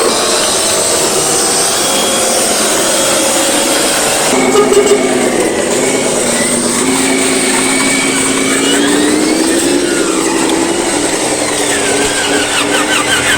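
A vehicle motor running continuously, its pitch slowly rising and falling, with an abrupt change in the sound about four seconds in. Faint warbling higher tones come in near the end.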